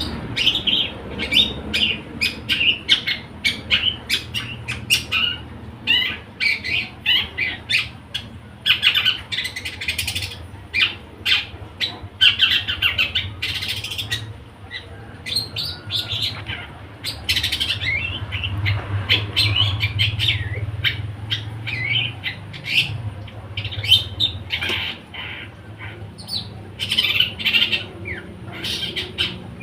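Long-tailed shrike (cendet) singing a rapid, nearly nonstop string of harsh chirps and squawks, the fast running 'trotol' style of song.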